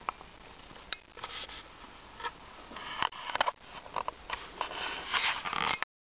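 Handling noise: scattered clicks and short rustles, growing busier and louder toward the end.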